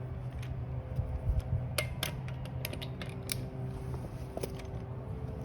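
Torque wrench and socket working the wheel's lug nuts: a run of short sharp metallic clicks, bunched together about two to three seconds in, over a steady low hum.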